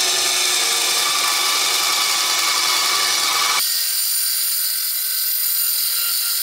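A 370-watt ATIKA BS 205 benchtop bandsaw running, its motor driving the wheel directly, with the blade cutting through a small pine block. The sound is loud and steady, and about halfway through it abruptly turns thinner and higher as the deep part drops away.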